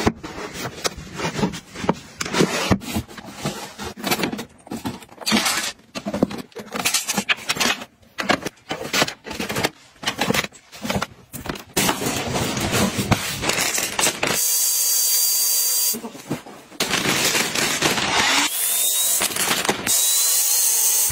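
Plastic organizer bins and items being handled and set down, a run of clacks and knocks. More than halfway through, a small electric air pump starts running steadily, sucking the air out of a vacuum storage bag of clothes, with a high whine that rises near the end.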